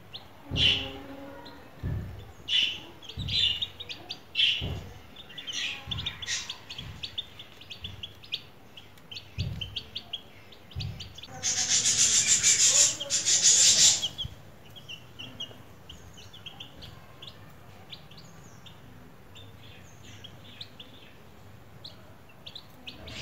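Young chicks peeping in short, high chirps, repeated throughout. Low thumps come every second or so in the first half, and a loud rustling hiss lasts about two and a half seconds near the middle.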